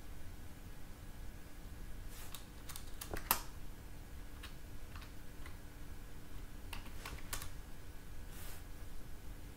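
Computer keyboard being typed on: scattered groups of key clicks, the loudest about three seconds in, over a faint steady hum.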